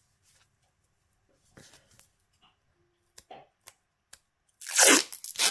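Clear plastic wrap on a rolled-up desk mat being picked at and then torn off: a few faint clicks and rustles, then a loud tearing, crinkling burst starting about four and a half seconds in.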